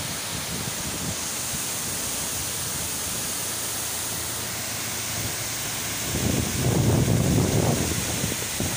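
Tamaraw Falls in heavy flow after typhoon rains, a steady rushing hiss of falling water. About six seconds in, a louder low rumble joins for two seconds or so.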